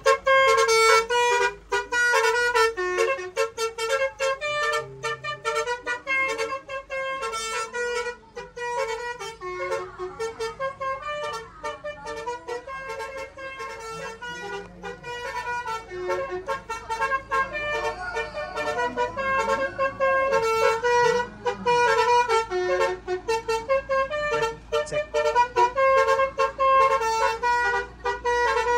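Basuri, a multi-tone musical air horn on a show truck, playing a fast melody of short notes that step up and down in pitch.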